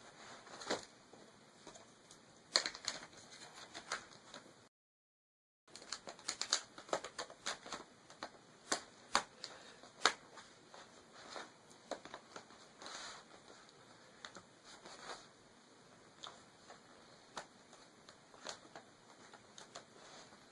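Irregular plastic clicks and taps as the battery cover is fitted and pressed back onto the bottom of an Acer Aspire TimelineX 5830TG laptop. A brief full silence about five seconds in.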